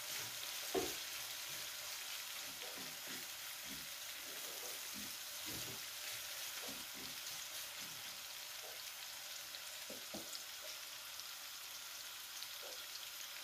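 Sliced onion, garlic and paprika sizzling in olive oil in a frying pan, stirred with a spoon that scrapes and taps against the pan, with one louder knock about a second in.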